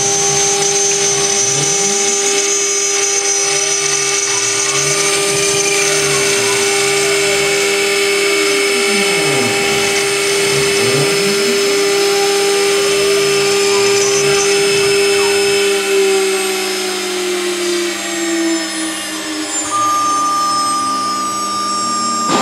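Spindle of a metal CNC router milling aluminium plate: a steady high whine with cutting noise. Near the end the whine's pitch falls.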